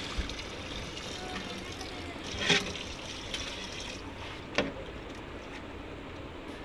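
Water pouring in a stream into a pot of fried onions and vegetables, with two sharp knocks about two and a half and four and a half seconds in.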